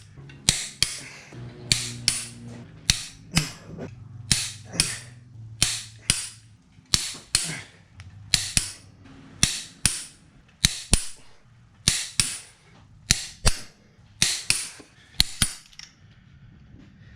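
Click-type torque wrench breaking over again and again as the ARP head studs on a Toyota 7M-GTE cylinder head reach their set torque: sharp clicks, mostly in close pairs, about once a second.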